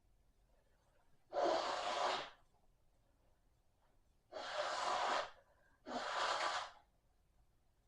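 A person coughing: three breathy, rasping bursts of about a second each, the first about a second and a half in, the other two close together past the middle.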